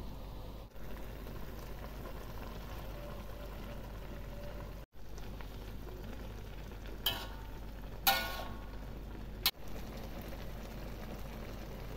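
Liquid boiling with a steady bubbling hiss in a large aluminium wok. A metal spatula stirs through it and strikes the wok sharply twice past the middle, each time with a short metallic ring.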